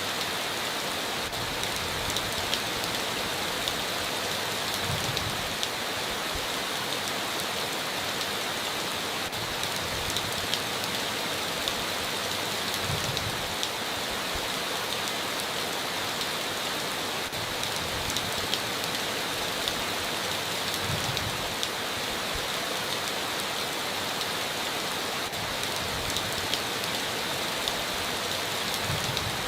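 Heavy rain falling steadily on a tin roof, with many sharp drop ticks. A soft low thump comes about every eight seconds.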